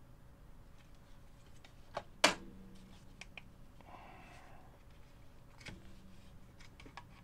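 Scattered small clicks and taps of hand tools and parts on the metal tape-deck mechanism of a video recorder, with one sharp click about two seconds in and a brief rustle around four seconds.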